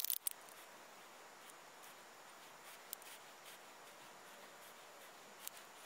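Quiet handling sounds from a dual-cartridge epoxy applicator being squeezed while potting compound is laid in: a few sharp clicks at the very start, light rubbing, and single small ticks about three and five and a half seconds in, over a faint steady hiss.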